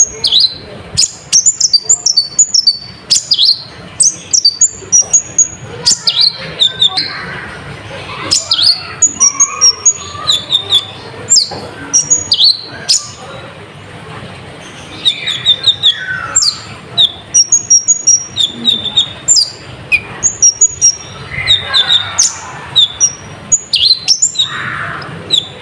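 A konin (kolibri ninja) sunbird singing: rapid, high, twittering chirps in bursts with short pauses. It is a lively 'gacor' song of the kind used as a lure to rouse other birds.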